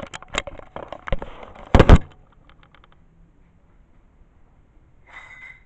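Handling clatter: a quick run of clicks, knocks and rattles as the camera is moved and a jian sword in its scabbard is picked up, with two sharp knocks about two seconds in. After a quiet stretch, a short scrape with a ringing note near the end.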